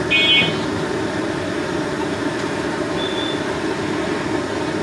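Jilapi deep-frying in a wide pan of hot oil: a steady, noisy frying sound. A few short high-pitched chirps come right at the start.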